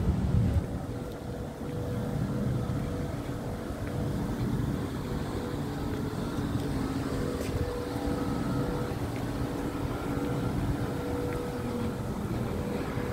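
Steady mechanical hum of a bank of outdoor air-conditioning condenser units, with a few held tones over a low rumble. There is a brief low rumble in the first half second.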